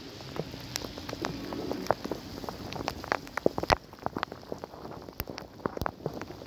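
Rain and wet snow falling on a slushy road: a steady hiss with many irregular sharp taps of drops striking close by.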